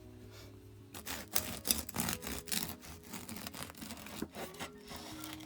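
Bread knife sawing through a crusty baked loaf, the crust crackling in a dense run of crunches and scrapes that begins about a second in.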